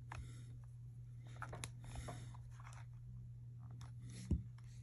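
Faint handling sounds of an iPhone being pressed into a plastic phone case on a cloth: light rustles and small clicks, with one soft knock a little after four seconds in, over a low steady hum.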